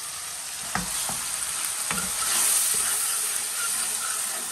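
Onion-tomato masala sizzling in oil while it is stirred, with a few sharp knocks of the stirring utensil against the cooking vessel in the first two seconds.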